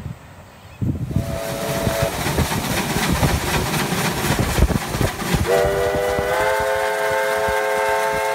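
Steam locomotive 3016 running past with a clattering, hissing noise. Its whistle gives a short blast about a second in, then a long blast of several tones from about two-thirds through, stepping up slightly in pitch soon after it starts.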